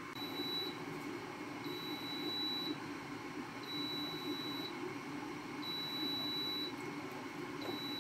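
Gourmia air fryer beeping: a high electronic tone about a second long, repeating every two seconds, five times, over the steady whir of its fan.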